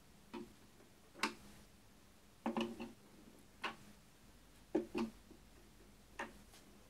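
Sharp plastic clicks, several of them roughly a second apart and some in close pairs, as a screwdriver turns the corner fasteners of a plastic electrical panel's front cover to perpendicular to release it.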